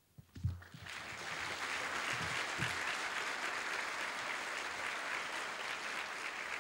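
A large seated audience applauding steadily, starting about a second in, just after a low thump.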